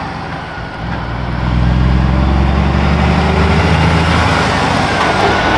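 Truck engine running: a steady low rumble that grows louder about a second and a half in.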